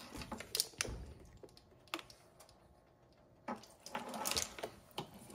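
Light clicks and knocks of kitchen utensils, a plastic measuring spoon and a ceramic bowl, being handled, then about a second of rustling and crinkling as a plastic water bottle is picked up about three and a half seconds in.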